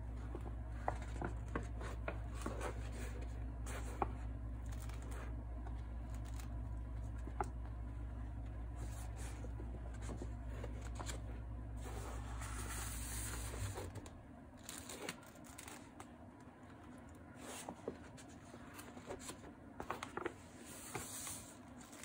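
Hands handling a thick, painted concertina-fold art journal: paper rustling and sliding, with soft taps and crinkles as the folded pages are opened out and pressed flat. A low steady hum underneath stops about two-thirds of the way through.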